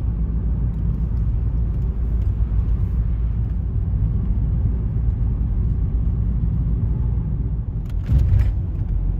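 Steady low rumble of a car's engine and tyres on the road, heard from inside the cabin while driving. A brief louder rush of noise comes about eight seconds in.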